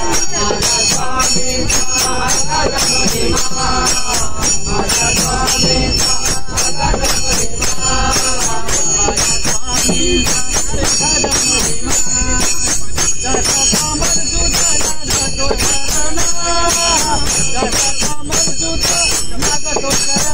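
A group of men singing a devotional bhajan in chorus, accompanied by jingling hand percussion (khanjani and damru) that keeps a steady rhythmic beat with bright ringing jingles.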